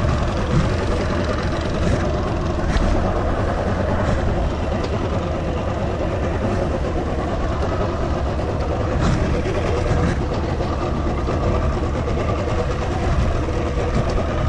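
Outboard motor of a Triton bass boat running steadily at low speed as the boat idles away from the dock.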